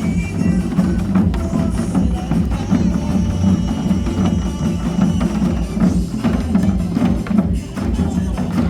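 A group playing Korean drums in unison, a steady run of beats over music.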